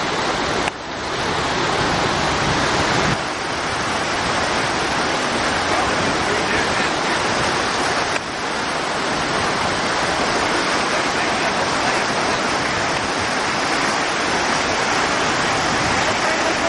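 Steady rush of stream water flowing through a flood-damaged road culvert.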